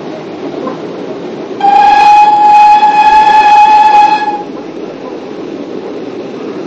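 Steam whistle of the Welshpool and Llanfair Light Railway's Beyer Peacock 0-6-0 tank engine The Countess, one steady blast of about two and a half seconds starting near two seconds in, over the steady running noise of the moving train.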